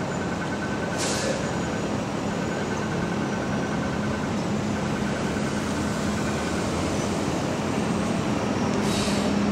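Steady city street traffic noise with a low engine hum, broken by two short hisses, about a second in and near the end.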